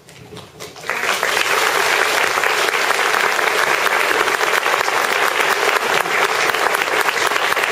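Audience applause: after a quiet first second, many hands start clapping and the applause holds steady.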